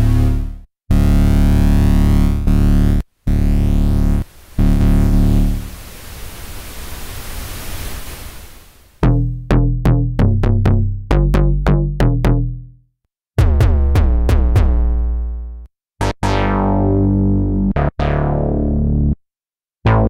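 Cherry Audio Dreamsynth software synthesizer playing bass presets. Deep held bass notes are broken by short gaps, then comes a hissy noise sweep that grows brighter. After it come quick, plucky bass notes with sharp attacks, and finally longer notes that die away.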